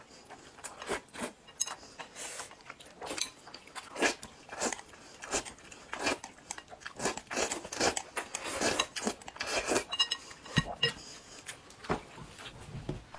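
Two people slurping noodles off chopsticks and chewing, in many short, irregular wet bursts.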